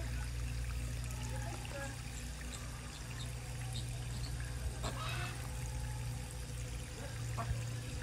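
Steady running water, pouring and trickling, over a low steady rumble.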